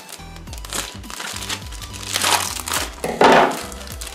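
Plastic poly mailer bag crinkling as it is cut open with a knife and handled, with the loudest crinkle about three seconds in, over background music.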